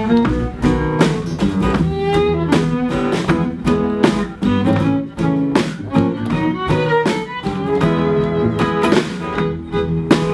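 Live country band playing an instrumental break: a fiddle bowing a melody over strummed acoustic guitars and an upright bass, with a steady strummed rhythm.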